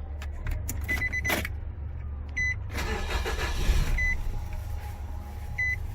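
A short, high electronic beep repeating about every second and a half over a steady low hum, with a brief rush of noise in the middle.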